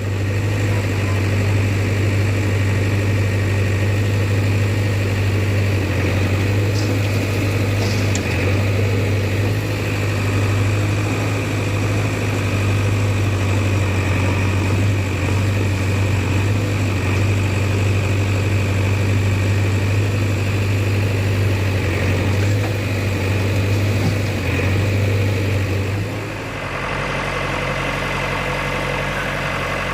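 Heavy diesel engine of the working machinery running steadily with a deep, even drone. About 26 s in it drops slightly in loudness and settles to a different steady note.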